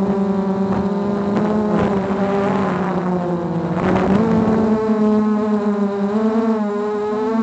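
Small drone's electric motors and propellers whirring with a steady, multi-toned hum, the pitch wavering with the throttle and stepping up a little about four seconds in.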